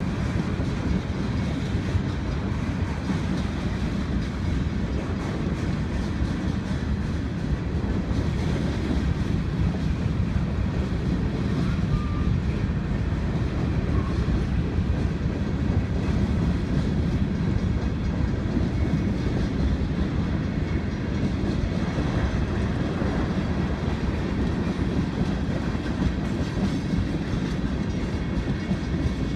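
Freight train cars rolling past at a grade crossing: a steady rumble of steel wheels on the rails.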